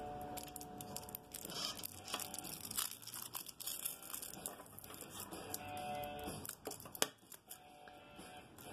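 Aluminium foil shield of a shielded Cat6A cable crinkling and crackling in the fingers as it is folded and wrapped back around the cable, with a sharp click about seven seconds in.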